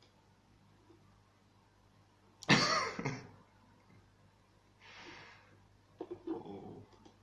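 A man coughs loudly, a double cough about two and a half seconds in. A softer breath out follows, then a few short breathy sounds near the end.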